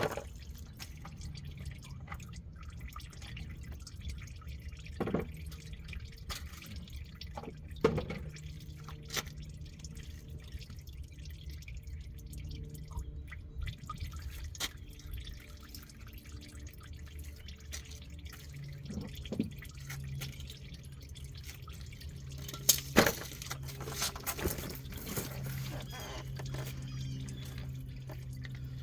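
Used engine oil dripping from the oil pan's drain hole into a catch bucket as the last of it drains out, with a few sharp knocks. A low steady hum comes in about two-thirds of the way through.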